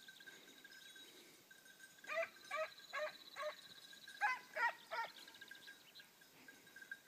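Italian hound (segugio italiano) baying in short yelping barks: four about two seconds in, then three more after a short pause.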